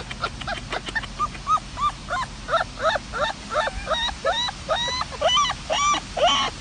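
Dog yipping in a rapid series of short, high-pitched yelps, about three or four a second, starting about a second in and continuing to the end, preceded by a few sharp clicks.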